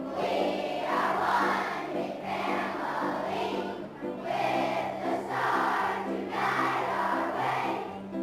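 A group of children singing a song together over a steady instrumental accompaniment.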